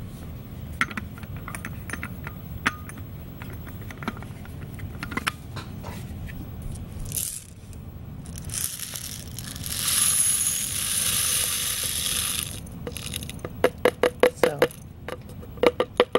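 Peppercorns being poured into a pepper grinder: scattered clicks of single corns at first, then a steady rush of pouring peppercorns for about four seconds past the middle, then a quick run of clicks near the end.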